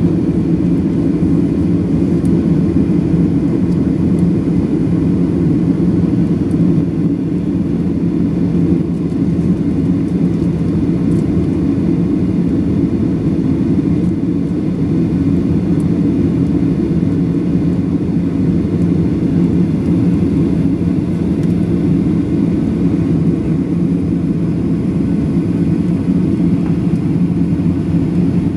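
Steady cabin noise inside a Boeing 737-800 in flight on its descent: the CFM56-7B engines and the airflow past the fuselage make an even, low-pitched rush that does not change.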